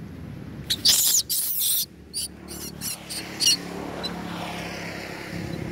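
Long-tailed macaque giving a run of high, shrill squeals: a longer call about a second in, then several short ones up to about three and a half seconds in.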